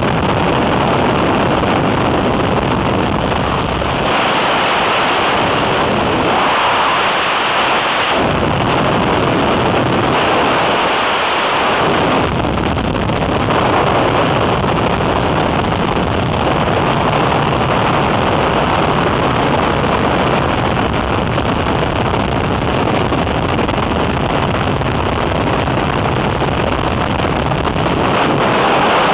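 Loud, steady rush of wind and engine noise in an open-cockpit biplane in flight, the slipstream blasting over the microphone. The deep rumble thins out twice for a few seconds, around four and ten seconds in.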